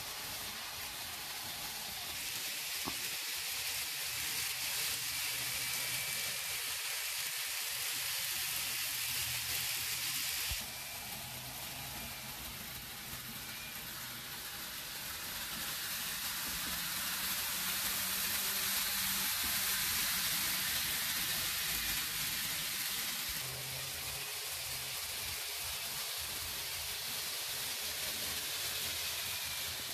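N-gauge Nagoya Tsurumai Line 3000 series model trains running on the layout track: a steady high hiss and whir of motor and wheels. It drops suddenly about ten seconds in and swells again in the middle.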